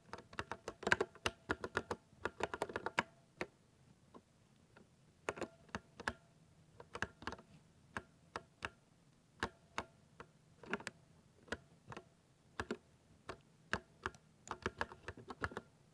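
Typing on a 60% mechanical keyboard with silver switches, each keystroke a thocky click. A quick run of keystrokes fills the first three seconds, then come scattered single presses and short runs, with another quick run near the end.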